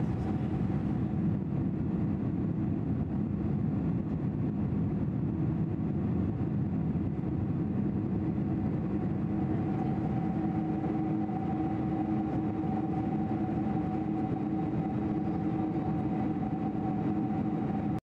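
Steady cabin roar of a Boeing 747-400's jet engines at climb power after takeoff, heard inside the cabin at a window seat, with a faint steady whine over the low rumble.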